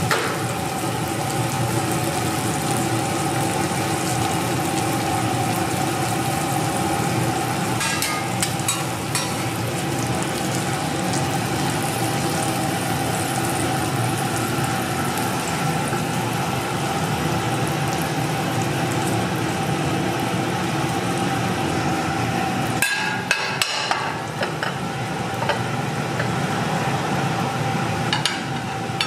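Egg fried rice cooking in a hot pan: a steady sizzle and hum of the burner and kitchen equipment, with a few sharp clicks of a metal spatula against the pan in small clusters.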